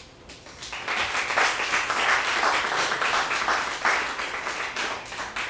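Audience applause: many hands clapping. It builds up within the first second, holds, and then tapers off near the end.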